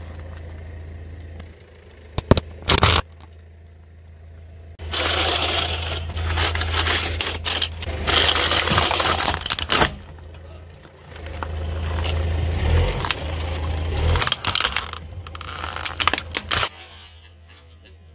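A car tyre rolls slowly over crackers and a plastic toy robot, crushing them: long stretches of crunching and crackling with several sharp snaps, over a steady low hum.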